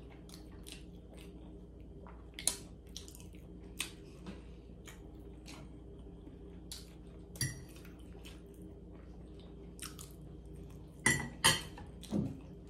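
A person chewing food close to the microphone, with soft mouth clicks and occasional fork clinks on a plate. A louder cluster of sharp clicks comes near the end.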